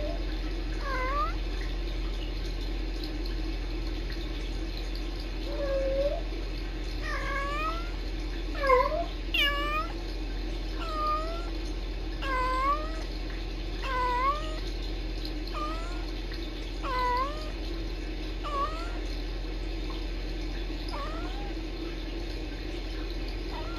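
Cats trilling and chirping to each other: a long run of short chirps, each dipping and rising in pitch, coming about once a second and thinning out near the end, over a steady low hum.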